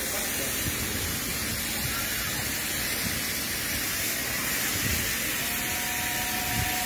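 Robot-held compressed-air spray gun hissing steadily as it sprays glaze onto a ceramic toilet bowl. A faint steady whine joins about five and a half seconds in.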